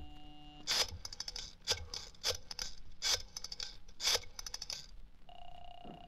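Rotary telephone being dialed, as a radio-drama sound effect: a steady tone cuts off just under a second in, then the dial is wound and released digit after digit, each release followed by a run of fast pulse clicks. A steady ringing tone begins near the end.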